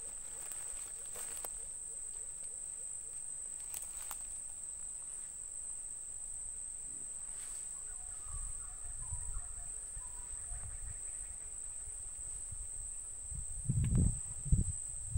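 Steady high-pitched insect drone with a slight pulse. Low rumbling thumps come in about halfway through and grow loudest near the end.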